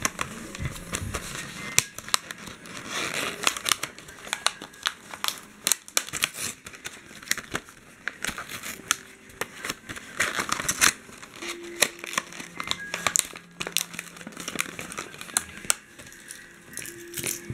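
Clear plastic blister packaging and its card and paper insert being handled and opened: irregular crinkling with many sharp crackles and clicks.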